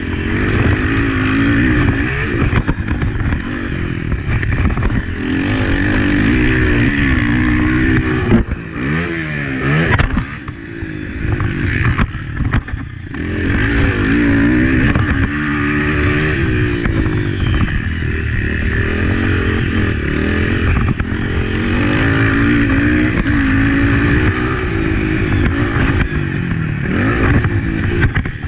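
Honda CRF250F four-stroke single-cylinder engine being ridden hard on a motocross track. The revs climb and fall over and over through the gears, with brief drops on and off the throttle about a third of the way in.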